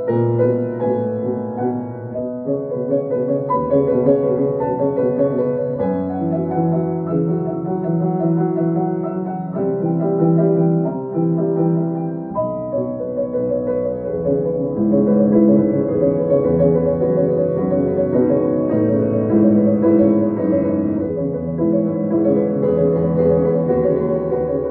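Grand piano played solo: the third movement of a sonata, a continuous stream of notes and chords with no breaks.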